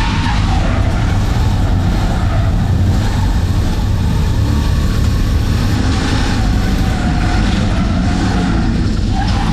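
Turbocharged Holden Ecotec V6 engine of a VS Commodore running steadily, without any big rise or fall in revs.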